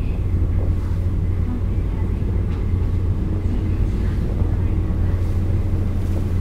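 Passenger boat under way: its engine drones steadily with a strong low hum, over the rush of water churning in the wake.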